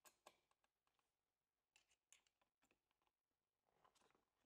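Near silence with a few faint, scattered clicks of a steel hex key being fitted and turned in the adjustment slot of a hot-air welder's plastic housing.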